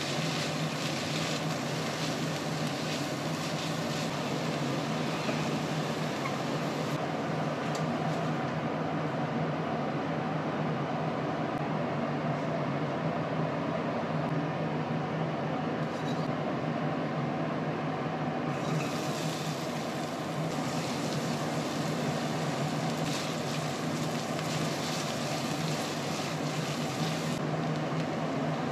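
Vegetables sizzling in a stainless-steel wok as they are stir-fried, over a steady low hum. The sizzle drops away for a stretch in the middle and comes back later, where butter and garlic are frying.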